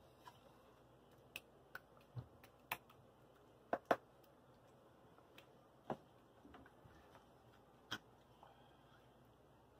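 Scattered light clicks and taps of a plastic measuring cup and wooden spatula against a frying pan and foil baking tray as meat sauce is scooped and spread, with a sharper double knock about four seconds in.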